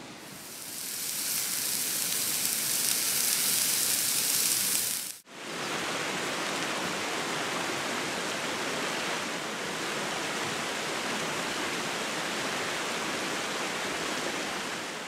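A steady, bright hiss for about the first five seconds, then, after a sudden cut, the even rush of a shallow, rocky river riffle running over stones.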